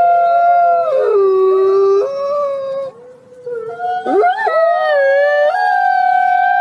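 Wolf howling: long, held howls with two voices at different pitches overlapping. About a second in the pitch steps down, the howling breaks off briefly around the middle, then a new howl glides up into a long, high, steady note.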